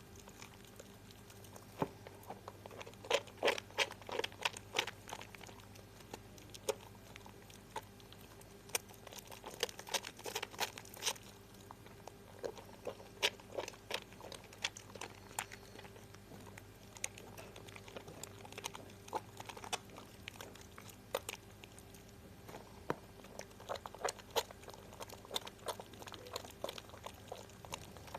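Wet Harmoni lemon bar soap being lathered: squishy, crackly foam sounds that come in clusters of small clicks, heaviest in a few stretches.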